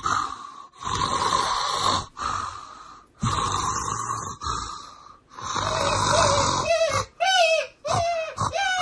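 Loud snoring, about six long snores of roughly a second each, followed near the end by a quick run of short, falling, squawk-like calls, about two a second.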